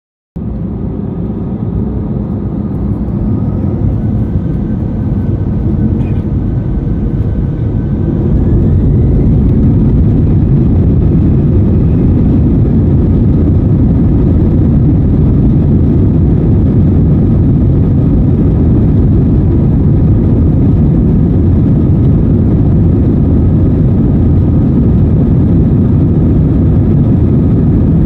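Airbus A320-family airliner's turbofan engines heard from inside the cabin, spooling up with a rising whine over the first eight seconds or so, then running loud and steady at take-off power as the aircraft accelerates down the runway.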